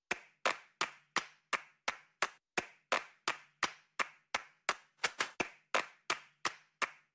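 Countdown-timer ticking sound effect: sharp, evenly spaced ticks about three times a second, with a quick extra tick just after five seconds in.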